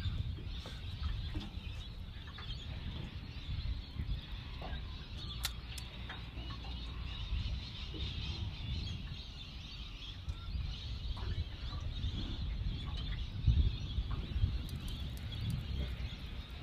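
Outdoor ambience of low wind rumble with birds calling in the background, a few faint clicks, and a louder low thump near the end.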